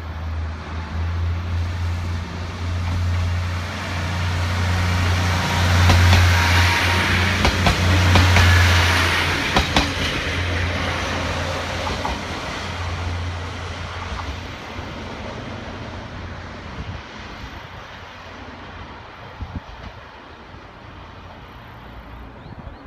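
KiHa 48 diesel railcar pulling away and passing, its diesel engine droning low under the rush of the wheels. The sound is loudest about six to nine seconds in, with a few sharp clicks near the middle, then fades away as the train recedes.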